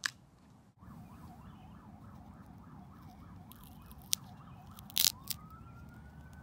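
A faint emergency-vehicle siren in a fast up-and-down yelp, switching about five seconds in to a long rising wail. Over it come a few sharp snaps as a green, unripe almond hull is cracked and pried apart by hand, the loudest about five seconds in.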